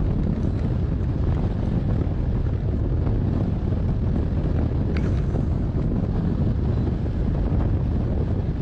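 Steady low rumble of wind buffeting a camera microphone on a hang glider in flight.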